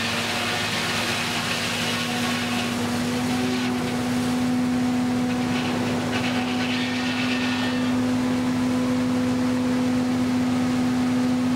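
Belt-driven circular sawmill running, its 56-inch inserted-tooth saw blade giving a steady hum throughout. A hiss of sawing through a log swells in the first few seconds and again around the middle.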